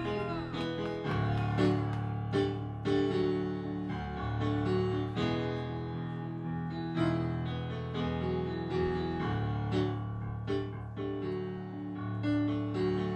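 Electric stage keyboard playing alone in a piano voice: chords struck over held low bass notes that change every second or two.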